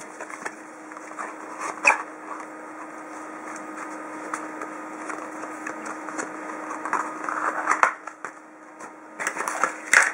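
Packaging being handled while unboxing a keyboard: rustling paper and plastic with scattered light clicks and a few sharper knocks, over a steady low hum.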